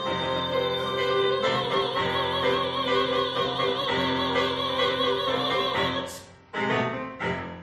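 A woman's voice singing a musical-theatre song with piano accompaniment, holding a long note with vibrato. It breaks off about six seconds in, followed by two short final notes.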